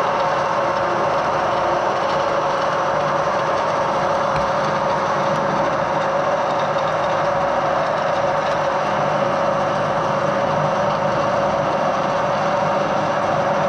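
Edgwick metal lathe running steadily under power while screw-cutting an Acme lead screw: a constant mechanical drone with a steady mid-pitched hum.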